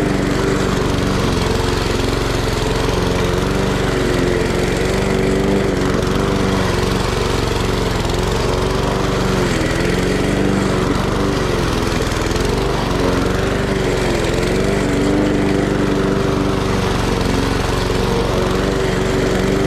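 Gas walk-behind push mower's small single-cylinder engine running steadily while cutting tall grass, its pitch dipping briefly several times around the middle.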